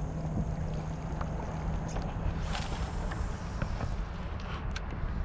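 Wind rumbling on the microphone as a fishing kayak moves on the water, with a steady low hum that cuts off about halfway through. Just after that comes a brief swish of water, with small knocks and clicks against the hull.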